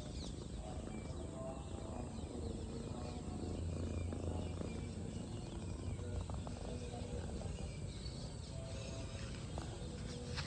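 Soft background music of short held notes, over outdoor ambience with faint bird chirps.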